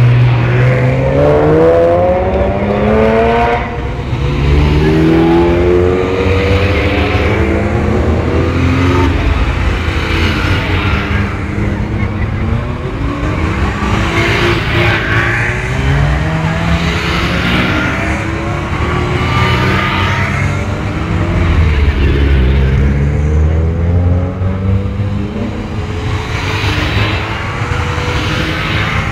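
A procession of Ferrari sports cars driving past one after another, engines repeatedly revving up in rising sweeps as each car pulls away, over a steady low rumble of idling engines.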